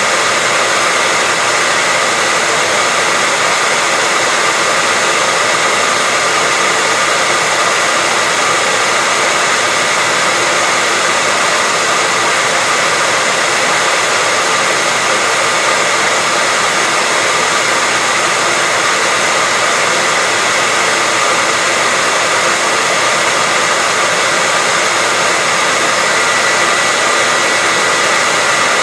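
Hair dryer running continuously: a steady rush of blown air with a faint motor whine held at one pitch.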